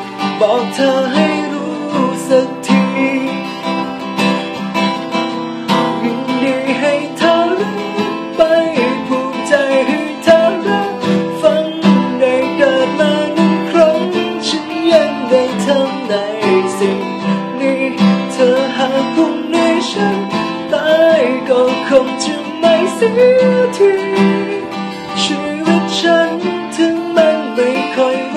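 A man singing while strumming chords on a cutaway acoustic guitar.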